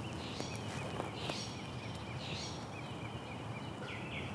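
Quiet outdoor ambience: a steady low background hum with faint, repeated short bird chirps and a few soft ticks.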